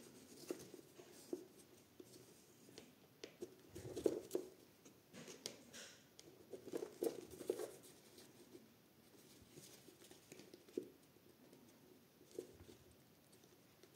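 Faint paper and cardboard rustling with scattered light clicks as a needle and thread are pushed and pulled through the holes of a folded paper signature in a cereal-box journal cover. A few slightly louder rustles come about four and seven seconds in.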